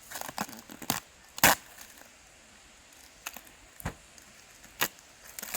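Aluminium floor boards of an inflatable boat knocking and clicking as they are handled: about five sharp knocks with small clicks between them, the loudest about a second and a half in.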